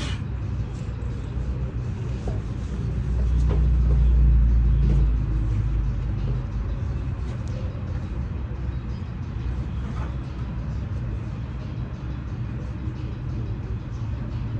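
A motor vehicle engine running steadily with a low rumble, swelling louder for a couple of seconds about three seconds in before settling back.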